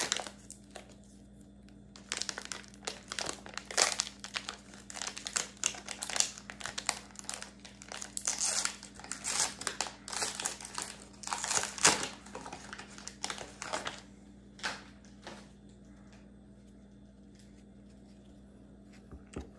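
Plastic wrapping of trading-card packs crinkling and tearing as the packs are opened by hand, a dense run of rustles from about two seconds in that stops about fourteen seconds in, followed by a couple of faint clicks.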